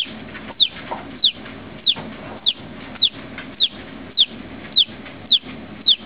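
Newly hatched chick peeping loudly and regularly: short, high peeps, each falling in pitch, about one every 0.6 seconds.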